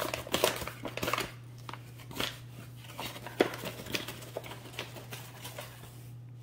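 Wire whisk beating a thin batter in a glass mixing bowl, its wires clicking rapidly against the glass, stopping about a second and a half in; a few scattered light clicks follow.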